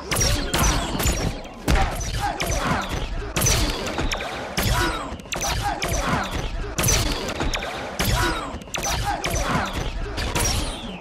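Film action sound effects: a rapid run of sci-fi phaser shots and hits, roughly two a second, each with a short sweeping zap tone.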